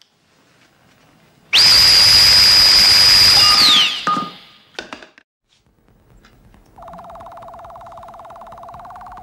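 Sci-fi weapon sound effect: a Sontaran ray gun firing, a loud hissing blast about two seconds long with a steady high whistle that drops away at the end. About seven seconds in, an electronic buzzing tone from the Doctor's hand-held device starts and slowly rises in pitch.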